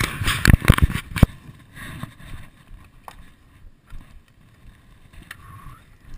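A quick run of loud knocks and bumps in the first second or so, then quieter irregular rustling and scattered clicks.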